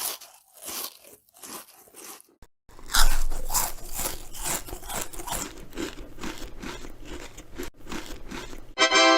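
Crunching sounds: a few separate crunches, then about three seconds in a long run of rapid, louder crunching. A pitched musical note starts right at the end.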